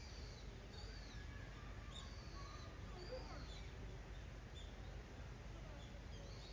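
Small birds chirping in the background: short, high, arched calls repeated roughly once a second, over a steady low rumble.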